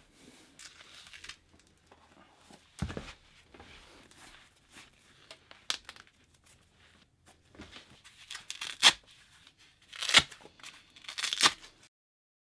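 Clothing and knee supports being pulled on and handled: fabric rustling, a dull thump about three seconds in, and several short, harsh noises in the second half, the loudest near the end.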